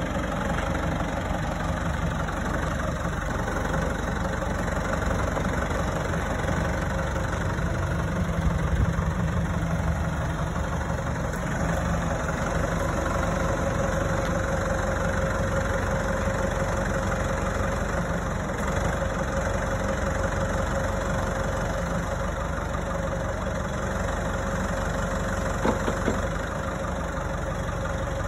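New Holland tractor's diesel engine running steadily while its hydraulic boom mower arm is swung and raised, with a steady whine joining about halfway through and a couple of short knocks near the end.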